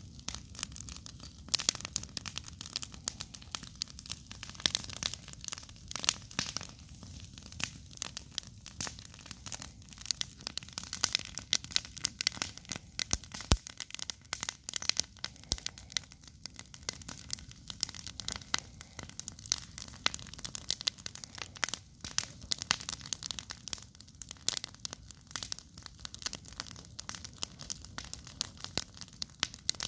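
Wood campfire crackling: a dense, irregular run of sharp pops and snaps.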